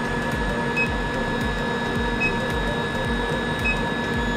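Induction heater running while it heats a steel bar in its copper coil: a steady high whine over a low pulsing hum, with a faint short beep about every second and a half.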